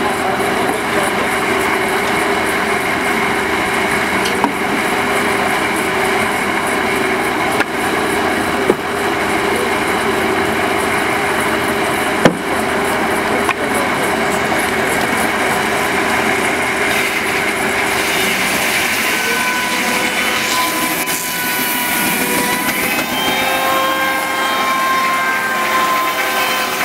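Steam-powered circular saw bench, belt-driven by a 1903 Burrell single-cylinder traction engine, cutting timber: a steady buzzing rasp of the blade in the wood, with a few sharp knocks. In the last several seconds the blade gives a ringing, whistling whine.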